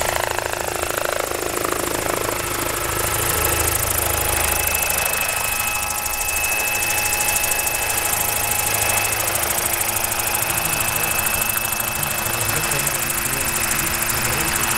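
Large electric-powered scale RC helicopter, a Bell 206 JetRanger model with a 3.37 m main rotor, hovering and flying slowly close by. Its main rotor makes a steady whir, and the electric drive and tail rotor give a steady high whine.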